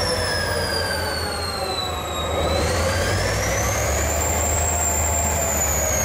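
Diesel locomotive 2044 014 running with a steady low engine drone under a high whine. The whine falls in pitch for the first two seconds or so, rises again until about five seconds in, and then starts to fall once more.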